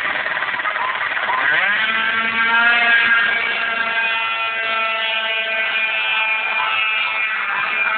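Two-stroke racing scooters, one a Yamaha Aerox, launching from the sprint start at full throttle: the engines climb sharply in pitch about a second and a half in, then hold a steady high pitch as they pull away down the strip.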